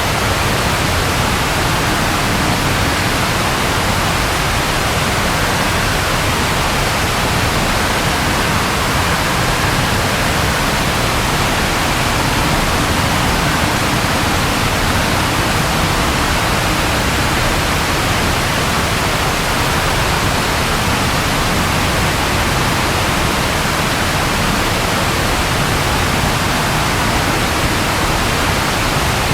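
Steady rain falling, a dense even hiss with no thunder or other change.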